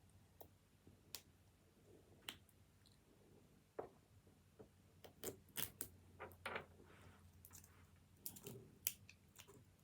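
Faint, scattered clicks and crinkles of plastic packaging being handled as the zip tear strip is pulled off a toy capsule, busiest in the middle and again near the end.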